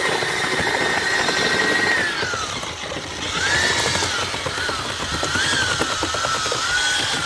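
Corded electric drill with a paddle mixer running in a bucket of wet concrete mix, its motor whine sagging in pitch about two seconds in, then climbing back and wavering as the load on the paddle changes. The paddle churns the slurry under the whine.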